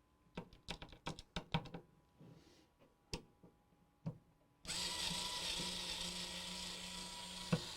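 Small clicks and knocks of computer parts and screws being handled, then a small power tool motor whirring steadily for about three seconds before stopping near the end.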